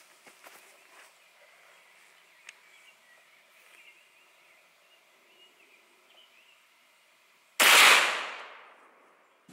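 A single 9mm pistol shot, firing a 115-grain Remington UMC jacketed hollow point, about seven and a half seconds in; the report fades away over about a second and a half. Before it, only faint outdoor background.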